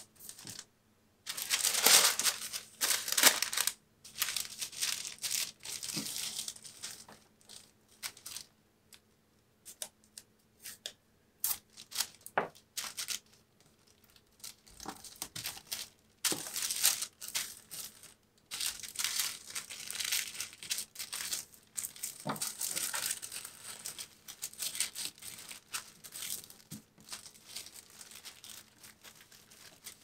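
White tissue paper rustling and crinkling in irregular bursts as it is folded and smoothed around a print into a flat packet, with a few short soft knocks.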